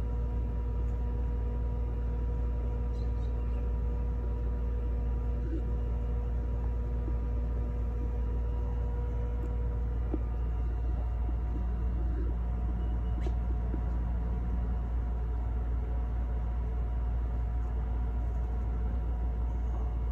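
Steady low rumble with a constant hum of several steady pitches above it, as from a motor or machine running without change.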